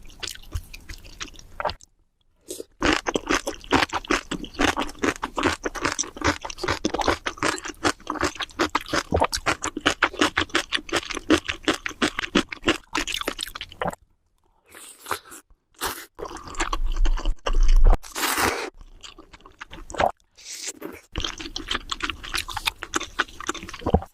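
Close-miked chewing of crunchy food, with rapid, dense crunches for about ten seconds, then a pause and sparser bites. About two-thirds of the way through there is one louder, harsher burst with a low thud.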